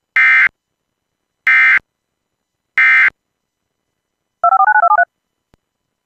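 Three short, identical bursts of Emergency Alert System digital data screech, the SAME end-of-message code that closes the alert. A quick string of touch-tone (DTMF) beeps follows, then a faint click.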